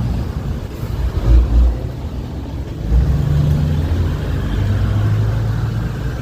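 Motor traffic passing on a city street: vehicle engines running, with louder low surges about a second and a half in and again near the three-second mark.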